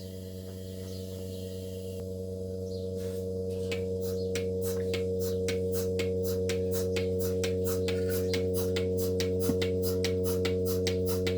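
Steady low hum of the milking equipment, with an even ticking of about four ticks a second that fades in about three seconds in and grows louder.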